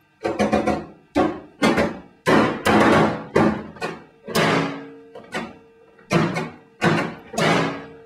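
A man's hands pounding and slamming on a small countertop microwave oven: a string of heavy thuds and bangs in irregular clusters, each ringing on briefly.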